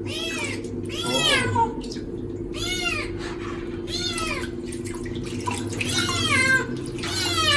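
Baby kitten meowing over and over, about seven high cries that rise and fall in pitch, roughly one a second, over a steady low hum. These are distressed cries from a kitten being bathed in warm water.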